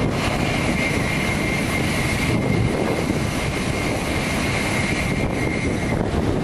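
Shinkansen bullet train passing at high speed: a steady rushing roar with a high whine held through most of it, which stops near the end.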